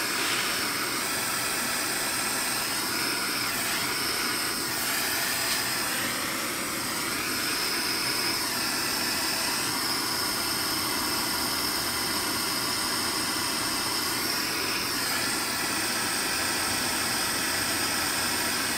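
Gas soldering torch burning with a steady hiss while heating a brass key-guard foot and the saxophone body to flow soft solder into the joint. Its tone wavers now and then.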